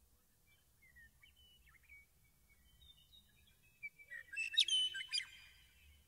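Meadowlark song: faint, scattered whistled notes and chirps, then a loud, complex phrase of song about four seconds in that lasts just over a second.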